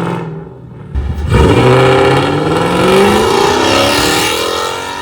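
Lexus GS400's 1UZ V8 revving through a straight-piped exhaust with an X pipe and gutted catalytic converters. A rev falls away at the start, then about a second in the engine revs hard, its pitch climbing steadily for about three seconds before easing off near the end.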